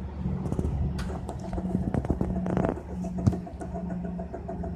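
ALP-45DP dual-mode locomotive's diesel engine running with a low steady drone, with scattered sharp clicks and knocks.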